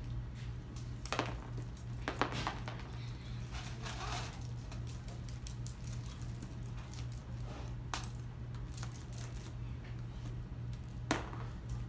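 Dried lima beans and tape-covered paper cards handled: a few light clicks and soft rustles as beans are picked up and shaken off, over a steady low hum.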